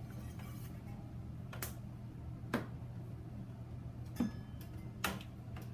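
Four light, sharp clicks and taps from handling the two-way mixing station and its brass hose fittings as the mop-bucket hose is connected to the bottom outlet, over a steady low hum.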